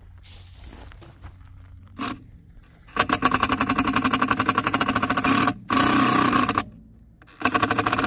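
Power driver driving screws into wood: a fast, even rattle in three bursts, the first about three seconds in, then a short pause, then a longer pause before the last burst near the end.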